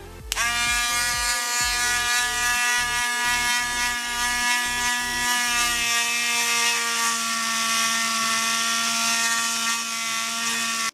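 Small handheld rotary tool of the Dremel type switching on and spinning up within a fraction of a second, then running at a steady high whine while its wire-wheel attachment scrubs corrosion off a model train's brass contact wheel. The whine stops abruptly at the end.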